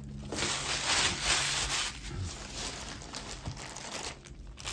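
Tissue paper and plastic bags rustling and crinkling as they are handled, loudest in the first couple of seconds and then fading.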